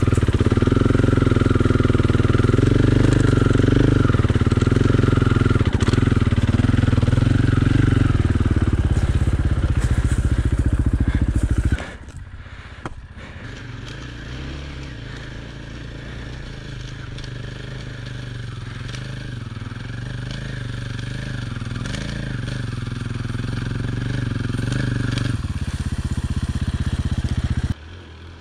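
Dirt bike engine running at low speed, cutting off suddenly about twelve seconds in. Then a second dirt bike's engine, quieter at first and growing steadily louder as it comes closer, stops abruptly near the end.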